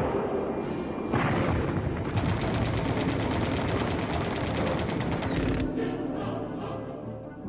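Rapid automatic gunfire, shot after shot with music underneath; a little past five seconds in the firing stops and the music, turning choral, carries on alone.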